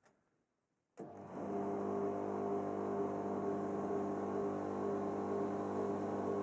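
A click about a second in, then the Privileg PWC 1716 tumble dryer's motor starts up and runs with a steady hum. The motor runs freely while the drum stays still, because the drive belt has come off.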